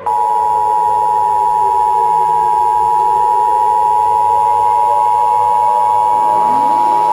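Emergency Alert System attention signal: a loud, steady two-tone (853 and 960 Hz) alert tone that cuts in abruptly and holds unchanged. It warns that an emergency alert message is about to follow. Faint ambient music with slow gliding tones plays underneath.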